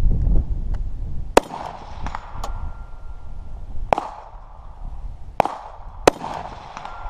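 Rifle shots fired at steel targets: four loud, unevenly spaced shots, each with a short echo, and fainter sharp cracks between the first two.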